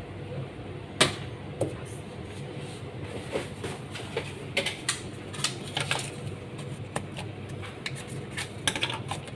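Cups, a lid and a shaker handled on a steel counter: a sharp knock about a second in, then a run of small clicks and taps, over a steady low hum.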